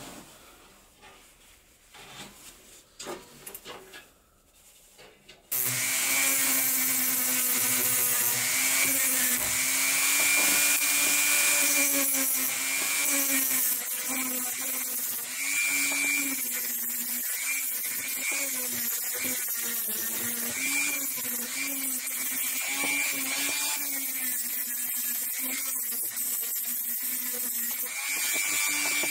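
A high-speed handheld rotary tool with a small abrasive wheel starts about five seconds in, grinding rust off a steel coat-hanger rod. The motor's whine wavers up and down in pitch as the wheel is pressed onto the metal and eased off.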